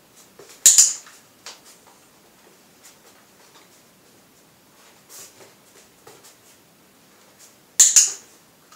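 Dog-training clicker clicked twice, about seven seconds apart, each a sharp double click-clack, marking the moment the dog is in heel position. Faint ticks of a dog's claws on a tiled floor between the clicks.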